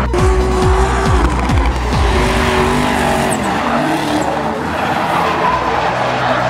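Drift cars sliding with engines revving and tyres squealing, mixed with an electronic trance track whose pounding kick drum drops out about two seconds in.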